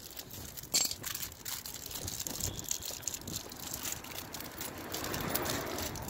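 Hands handling small electrical parts and tools: scattered light clicks and rustles over a faint steady background, with one sharper click about a second in.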